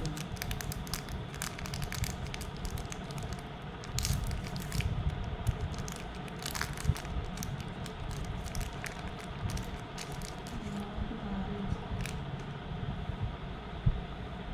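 Packaging being handled and opened, with crinkling and crackling clicks, some in quick clusters and one louder click near the end, over the steady whoosh of a running fan.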